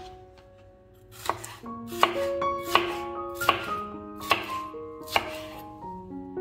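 Kitchen knife slicing a yellow bell pepper into strips on a wooden cutting board. Starting about a second in, there are six cuts, about one every three-quarters of a second, each ending in a sharp knock of the blade on the board. Soft background music plays underneath.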